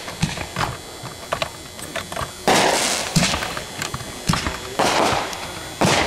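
Aerial fireworks going off: a string of sharp pops and bangs, with louder bursts about two and a half seconds in, around five seconds, and just before the end.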